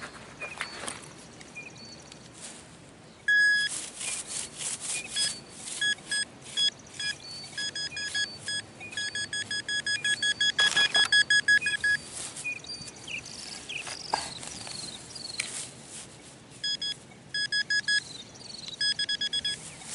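Metal detector beeping over a buried coin target: short high beeps at one pitch, broken into quick runs that at times become a rapid stream, with knocks and scrapes of digging between them.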